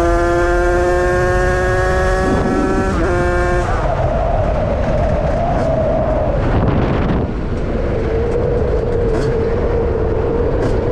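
Beta RR50 two-stroke engine with a 77cc Stage 6 big-bore kit and KTM SX85 expansion exhaust, running at high revs. Its pitch climbs slowly, dipping briefly at the start and again about three seconds in. After about four seconds the note drops to a lower, wavering tone.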